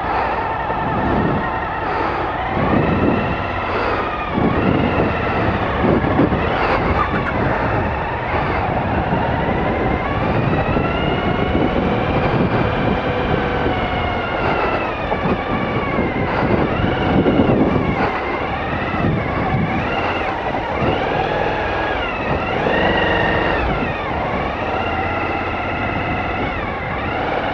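Adventure motorcycle engines running on a dirt hill, their pitch rising and falling over a few seconds at a time as the throttle opens and closes. Low rumbling wind noise is heard in the first few seconds.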